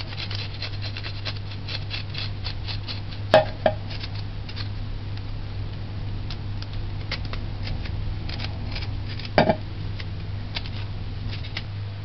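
Kitchen knife scraping and peeling the skin off fresh ginger root, a run of small scratchy clicks, with two louder double knocks about three and a half and nine and a half seconds in. A steady low hum lies underneath.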